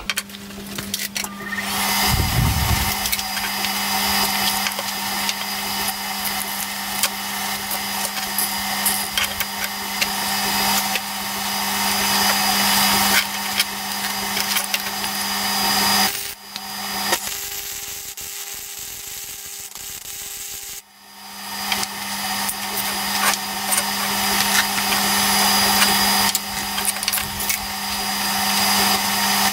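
MIG welder arc crackling and hissing steadily while running a bead on two clamped steel pieces. The bead is laid in two runs, with a break of a few seconds just past the middle.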